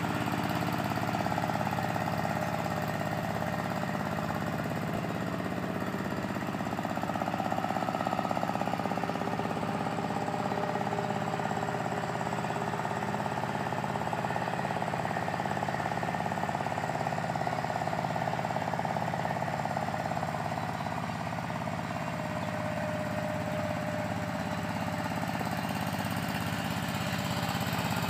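Two-wheel walk-behind tractor's single-cylinder diesel engine running steadily under load as it pulls a plough through a flooded rice paddy.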